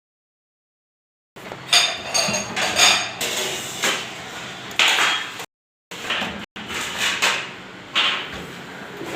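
A run of sharp metallic knocks and clatters, each with a brief ringing tail, starting abruptly about a second in and broken twice by sudden cut-outs.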